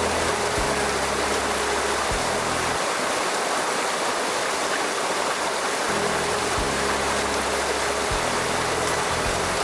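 Small mountain stream rushing steadily. Background music's low notes run underneath, dropping out for a few seconds in the middle.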